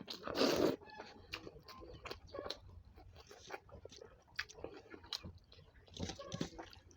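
Close-up chewing and wet mouth smacks from eating hot rice with tomato, in many small irregular clicks. A short, loud rushing noise comes about half a second in.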